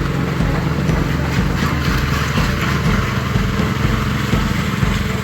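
Engine of construction machinery running steadily, with a low rhythmic pulse beneath it.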